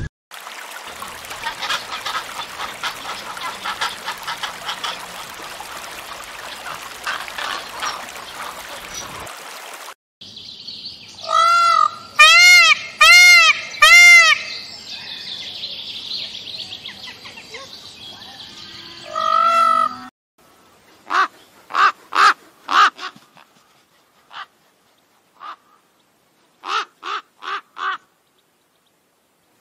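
Indian peafowl (peacock) calling: loud wailing calls that rise and fall in pitch, four in quick succession and one more a few seconds later. Later a crow caws, short calls in two clusters.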